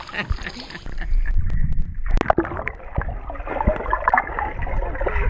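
Pool water splashing around a swimming child, turning muffled about a second in as the camera's microphone goes under the surface. After that comes a low churning with many small bubble pops and clicks.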